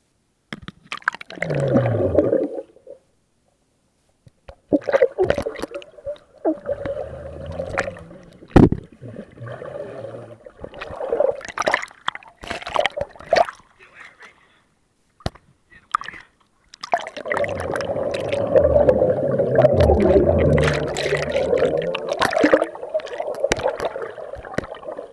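Pool water sloshing, gurgling and splashing around a waterproof camera as it moves under and above the surface, heard muffled and coming in irregular bursts with a few brief drop-outs to silence.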